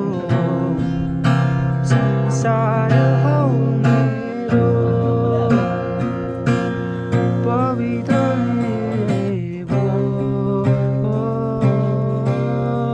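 Acoustic guitar with a capo strummed steadily, with a man singing a Nepali song over it.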